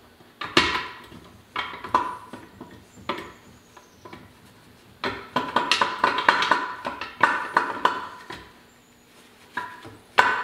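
Steel parts of an early Ford synchromesh transmission clinking and rattling against each other and the cast-iron case as the countershaft is worked into the cluster gear by hand. The clicks come in irregular bursts, busiest in the middle, with a brief ringing note on some clinks.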